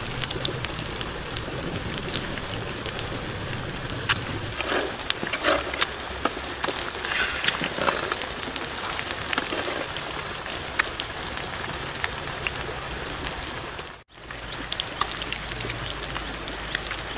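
Hot oil sizzling and spattering around eggs frying inside green bell pepper rings, a steady hiss full of sharp crackles. It drops out for a moment near the end.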